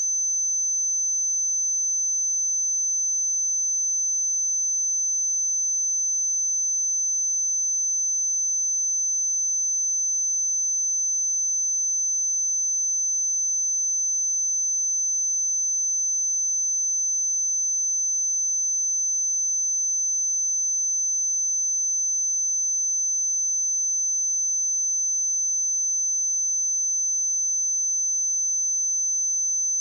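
A pure 6133 Hz sine-wave test tone, a single high-pitched note held steady at one pitch and level.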